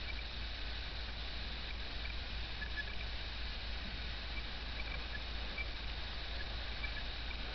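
Quiet outdoor night background: a steady hiss and low hum, with a few faint, scattered high chirps. No fireworks bangs.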